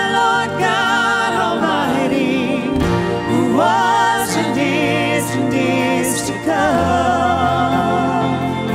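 A woman singing a contemporary worship song with a live band of piano, guitars, bass and drums. She sings long held notes with vibrato, three phrases each starting with an upward scoop.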